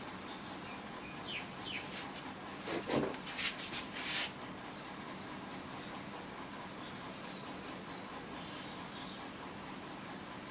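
An insect, cricket-like, trilling in short high-pitched pulses about four times a second, with birds chirping now and then. A brief scratchy rustle stands out about three to four seconds in.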